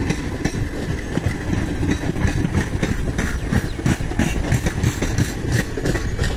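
Indian Railways passenger coaches running past on the near track: a steady rumble of wheels on rail with rapid, irregular clattering of the wheels.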